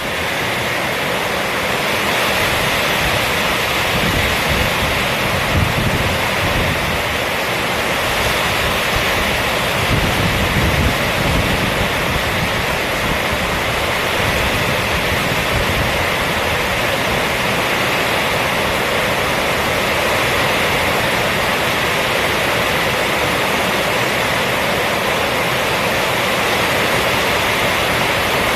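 Heavy rain falling steadily on a roof, an even, unbroken hiss, with brief low rumbles beneath it about four and ten seconds in.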